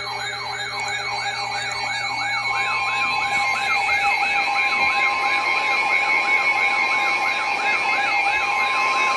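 Electronic siren yelping, its pitch sweeping up and down about four times a second. A steady high alert tone joins it about two and a half seconds in.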